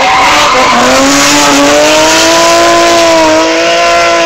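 Race car engine running at high revs under hard acceleration on a hill-climb course, very loud, its pitch climbing slowly over the first two seconds and then holding.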